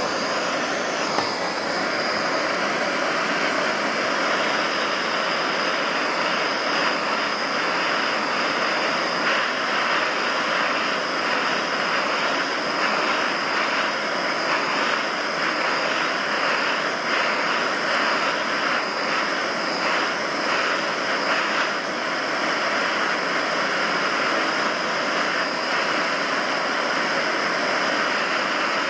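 Gas torch flame hissing steadily as it heats the hot cylinder of a home-built yoke-drive Stirling engine, with faint ticking from the running engine's mechanism underneath.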